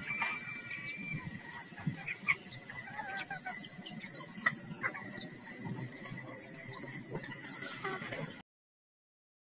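Red junglefowl clucking and calling, with many short, high chirps of small birds in the background and a couple of sharp clicks. The sound cuts out to silence about a second before the end.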